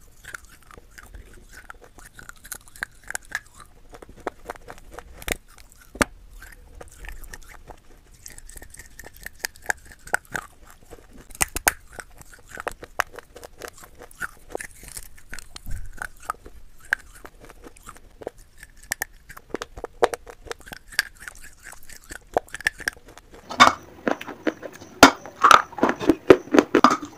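Fired terracotta clay bitten and chewed close to the microphone: sparse, crisp crunches and clicks of the clay shards breaking between the teeth. Near the end comes a louder, faster run of crunching.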